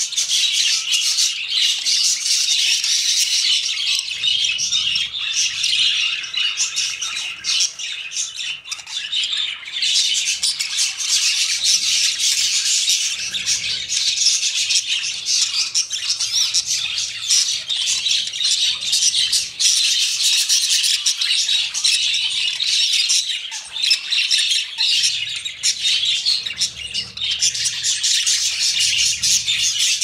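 Budgerigars chattering and warbling without a break, a dense stream of quick high chirps and squawks: the chatter of a courting pair.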